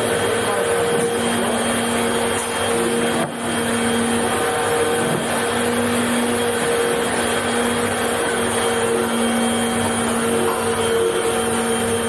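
Steady rushing and humming of workshop machinery and ventilation, with two pitched hums that fade in and out.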